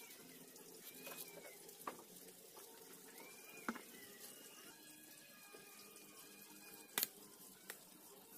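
A knife peeling unripe green bananas by hand: faint scraping with a few sharp clicks and knocks, the loudest near the end. Faint high tones that rise and fall sound behind.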